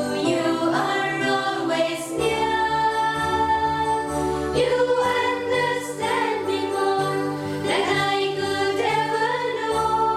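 A hymn sung by voices over instrumental accompaniment with a bell-like jingling timbre, steady and continuous.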